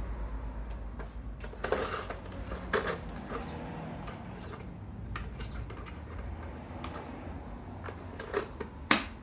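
Scattered clicks, knocks and clatter of tools and equipment being handled, over a low steady hum, with a louder clatter near the end.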